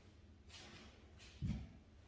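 Quiet movement sounds from a dog being lured over on the floor: faint rustling and one soft low thump about one and a half seconds in.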